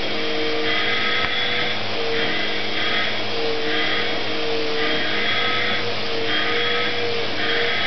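Vacuum cleaner running steadily with its nozzle drawn over a cat's fur. Its airflow hiss swells and fades in repeated strokes, roughly once a second, and its motor tone wavers slightly.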